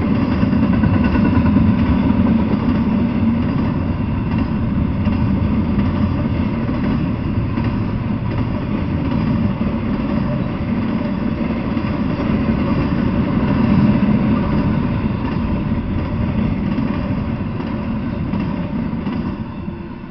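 Double-stack intermodal freight train rolling past close by: a steady rumble of steel wheels on the rails, fading near the end as the last well car passes.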